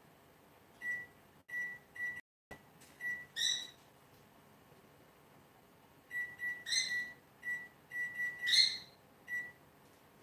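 Electronic kitchen timer beeping as its buttons are pressed to set it for the pie crust's bake. The short, high, even beeps come in two runs, one starting about a second in and another starting about six seconds in, with a few longer, louder tones among them.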